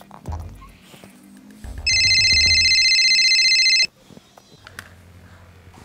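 Mobile phone ringtone: a loud electronic trill of several high steady tones, starting about two seconds in and cutting off suddenly after about two seconds.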